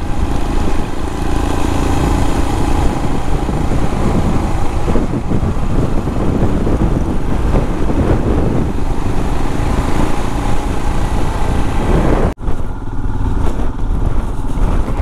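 Royal Enfield motorcycle running at a steady road speed, mixed with wind rush on the helmet microphone. The sound cuts out for an instant about twelve seconds in.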